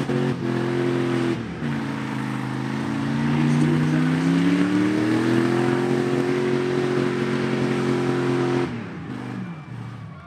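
Demolition derby truck engine running hard, dipping and then revving up and holding high, before cutting off suddenly near the end and winding down.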